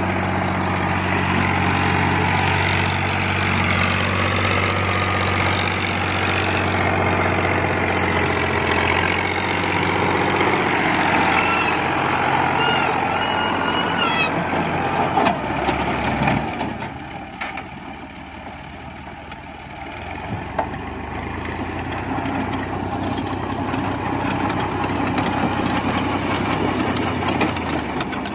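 Diesel farm tractor running steadily under load as it drives a rotavator through the soil, with the rotor's blades churning the earth. About halfway through, the engine note drops lower and quieter for a few seconds, then picks up again.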